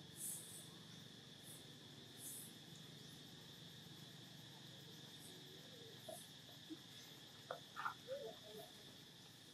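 Faint steady insect drone, with short high chirps every second or so in the first few seconds. A few small soft sounds come near the end.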